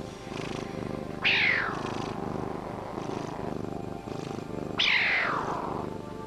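An animal calling twice, about three and a half seconds apart, each a short loud call that falls sharply in pitch, over a steady low pulsing sound.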